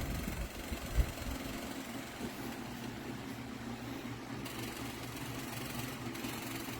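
Simple Deluxe 16-inch wall-mount fan running with a steady motor hum and the rush of moving air, with a brief low thump about a second in.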